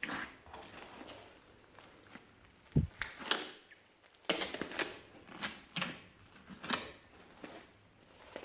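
Hands mixing and squishing slime, giving irregular sticky clicks, pops and crackles, with a dull thump about three seconds in.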